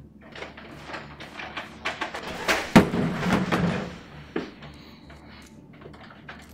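Heavy door mechanism: a run of clicks and knocks builds into a loud rushing hiss, with one heavy thud about three seconds in, then a few light clicks.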